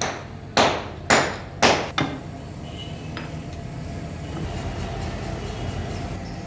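Three sharp hammer strikes on metal about half a second apart, each ringing briefly, followed by a steady low hum.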